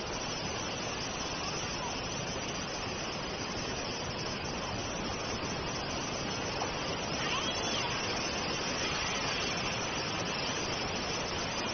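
Swollen, muddy floodwater rushing past at speed, a steady unbroken noise.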